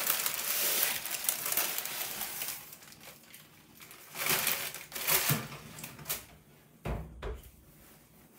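Baking paper rustling and crinkling as a springform cake pan is picked up with oven mitts. Then a few clatters as the pan goes onto the oven rack, and a heavy thump with a smaller knock near the end as the oven door shuts.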